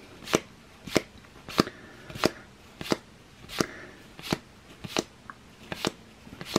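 Topps Match Attax football trading cards being flicked through one at a time by hand, each card slipping off the stack with a short crisp snap. There are about ten snaps, evenly paced at roughly one and a half a second.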